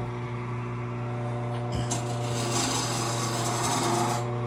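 Small benchtop wood lathe running with a steady motor hum. From about two seconds in, something rubs and scrapes against the wood for a couple of seconds.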